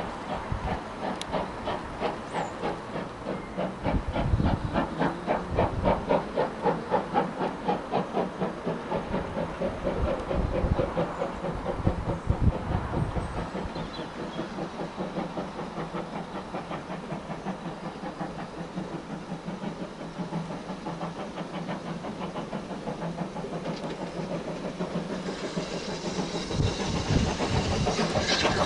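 Steam locomotive working towards the listener, its exhaust beat a steady chuffing of about two to three beats a second, louder in the first half. Over the last few seconds the hiss of steam grows as the engine draws near.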